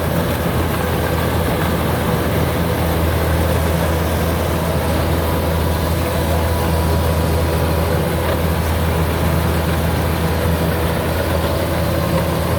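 Kubota DC93 rice combine harvester running steadily as it cuts lodged rice in a muddy field: a constant, unbroken diesel engine drone with steady machine hum above it.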